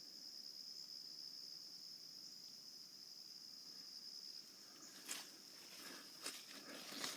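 Steady high-pitched insect chorus, the summer drone of crickets. From about five seconds in, a few short crackling rustles sound, like steps or handling in dry leaf litter.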